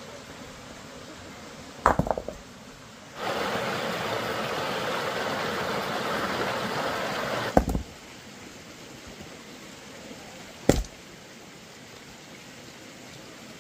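A knock, then about four seconds of water rushing or pouring that starts and stops abruptly and ends with another knock; a third knock follows a few seconds later, over a steady hiss.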